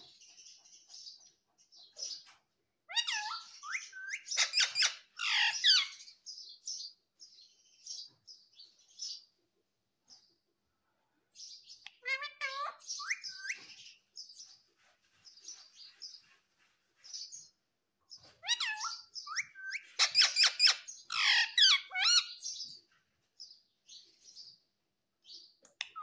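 Rose-ringed parakeet (Indian ringneck) calling in bursts of squawks and chattering chirps: three louder bursts about 3 s in, around 12 s and from about 19 to 23 s, with softer chirps between.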